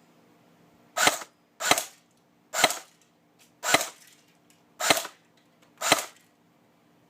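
Six semi-auto shots from an airsoft M21 rifle fitted with a homemade suppressor made from a Thunder B shell, each a sharp pop with a short tail, fired about one a second.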